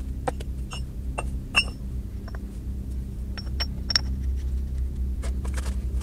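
Steel parts clinking and knocking against a cast-iron rotary table as a workpiece plate is lifted off and a centring piece is set in place, several strikes ringing briefly, loudest about one and a half and four seconds in. A steady low hum sits underneath.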